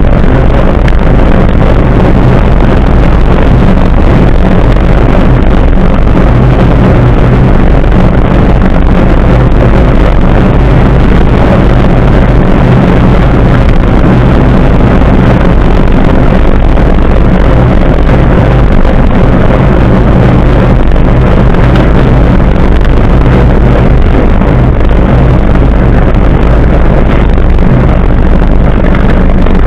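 Loud, steady rush of wind and tyre noise on a bicycle-mounted camera's microphone as the bike rolls along asphalt, unbroken throughout.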